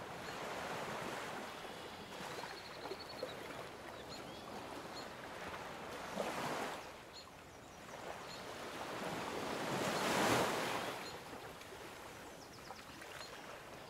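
Soft ocean waves washing in: a gentle rush of surf that swells twice, about six and ten seconds in, the second swell the louder. A faint run of high chirps about three seconds in.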